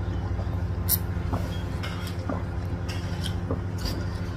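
A steady low hum, with a few small clicks and taps from drinking out of plastic cups and picking food off a metal tray by hand. One sharp click about a second in is the loudest.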